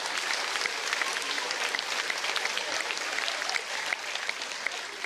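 Audience applause: many people clapping together at once, easing slightly near the end.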